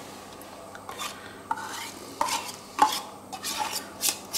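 A metal spoon scraping and clinking inside a tin can while scooping thick condensed milk out. The sound is a run of short scrapes and clinks, some with a brief metallic ring, starting about a second in.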